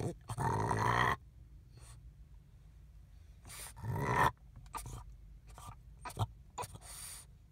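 French bulldog making breathy huffs and grumbles. The loudest comes about half a second in and another about four seconds in, with a few small clicks between.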